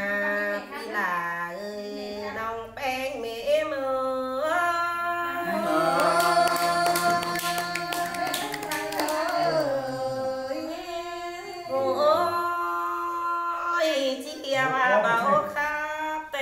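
A woman singing a Thái folk song (hát Thái) unaccompanied, in long held notes that bend and slide in pitch between short phrases.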